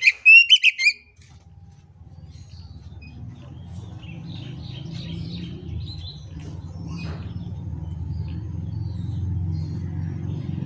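Oriental magpie-robin singing a rapid burst of loud, clear whistled notes in the first second, then only faint scattered chirps. A low rumble builds steadily underneath through the rest.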